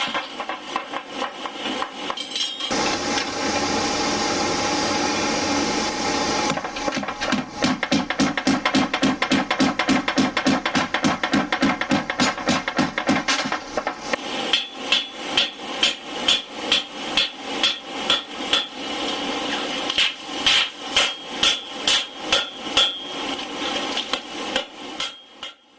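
Hammer blows on hot steel during forge welding, struck in a fast regular rhythm of about four a second. A steady hiss runs under them from about three seconds in until past six seconds. In the second half the blows slow to about two a second and ring with a high metallic note.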